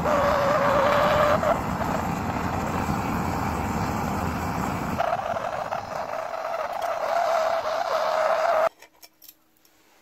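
Cutting torch burning through steel plate: a steady loud hiss with a wavering tone in it, cutting off suddenly near the end.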